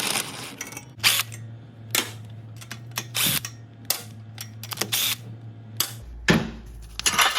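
Irregular sharp metallic clicks and knocks of hand tools and loose exhaust parts, roughly one a second, as a motorcycle exhaust is unbolted. Under them runs a steady low hum that drops lower about six seconds in.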